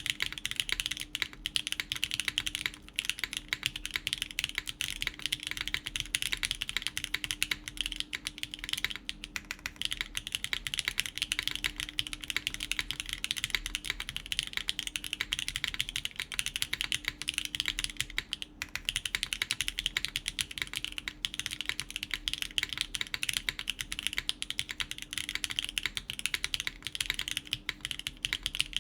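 Continuous typing on a gasket-mounted mechanical keyboard fitted with factory-lubed BSUN Tai Chi tactile switches, an FR4 plate and GMK keycaps: a dense, unbroken stream of keystroke clacks.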